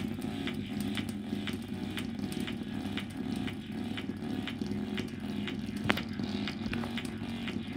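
A bare Philips surround-sound speaker driver driven hard with bass-heavy music, a low heavy tone under a steady beat of about two strokes a second. There is one sharp click about six seconds in.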